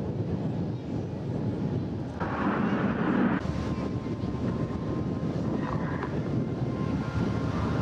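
Jet noise from Red Arrows BAE Hawk T1 trainers, each powered by an Adour turbofan, flying past with smoke on. The noise is a steady rush that swells for about a second a little after two seconds in.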